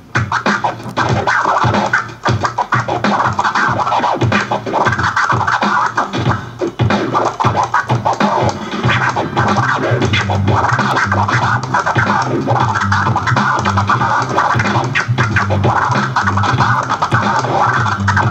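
DJ scratching a vinyl record on a turntable. The record is pushed back and forth by hand so the sound sweeps up and down in pitch, and it is chopped on and off with the mixer's fader in a fast, choppy run.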